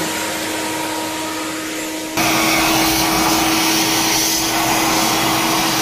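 Vacuum cleaner running steadily with a held hum, its hose sucking at surfaces. About two seconds in, the sound jumps abruptly louder and hissier, then runs on steadily.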